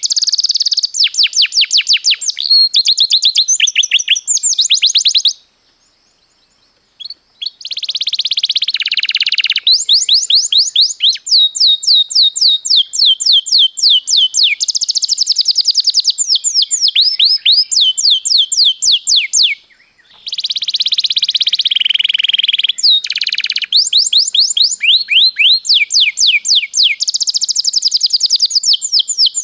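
Domestic canary singing long rolling trills: rapid runs of repeated high, sweeping chirps that change from one run to the next. The song breaks off for about two seconds a quarter of the way in, then resumes.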